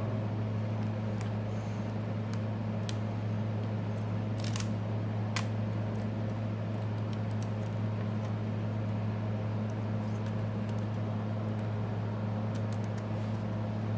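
Faint scattered clicks and taps of small tools handling the opened phone's parts, over a steady low electrical hum.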